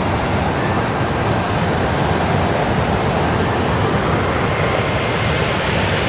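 Water pouring over a stepped concrete weir, a loud, steady rush of noise.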